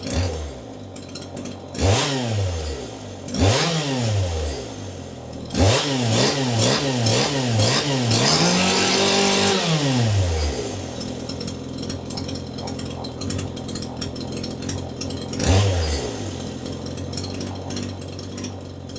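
Two-stroke chainsaw idling and being revved in blips: single throttle blips about 2 and 3.5 seconds in, then a quick string of about five blips, then one rev held for about two seconds before dropping back to idle. One more short blip comes near the end.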